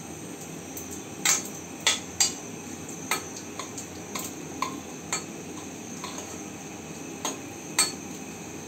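Metal spoon stirring in a kadai of mustard seeds and asafoetida frying in hot sesame oil, the spoon clinking against the pan in about a dozen sharp, irregular clicks over a low sizzle.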